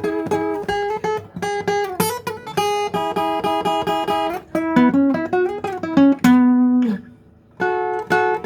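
Acoustic guitar playing an instrumental passage of quick picked notes and chords, with a brief pause about seven seconds in before the playing resumes.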